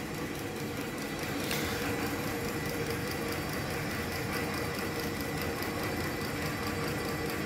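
Homemade flywheel motor-generator rig, with its motor, generator and flywheel on one shaft, running steadily: an even mechanical clatter of fast ticks over a faint steady hum.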